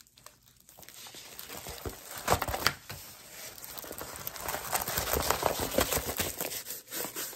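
Plastic packaging and a rolled diamond painting canvas rustling and crinkling as they are handled and unrolled, with a few sharper crackles about two and a half seconds in.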